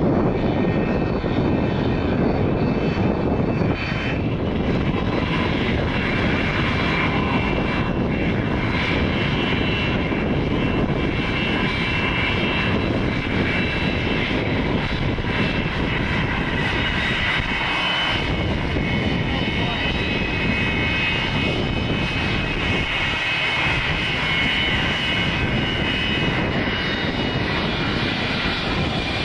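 A de Havilland Canada DHC-6 Twin Otter's turboprops on landing approach for the first few seconds, then the McDonnell Douglas MD-80's rear-mounted Pratt & Whitney JT8D turbofans running at taxi power: a steady jet whine over a low rumble, stronger in the later half as the jet comes closer.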